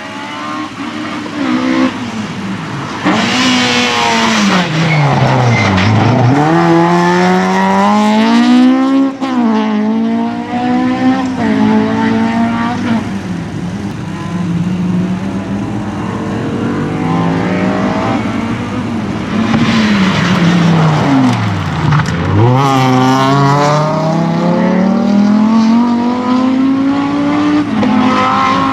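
Racing car engine on a sprint run, loud throughout: the revs fall away sharply twice as it slows for corners, then climb again under hard acceleration with quick gear changes.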